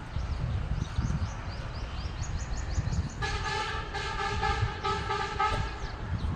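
A vehicle horn honks about three seconds in and holds one steady note for about two and a half seconds, with a few brief breaks. Small birds chirp in the first half, over a low rumble.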